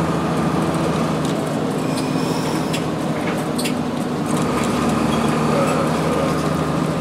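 Cummins ISC diesel engine of a 2002 Blue Bird CS transit bus running steadily, heard from inside the cabin, with a few sharp clicks and rattles around the middle.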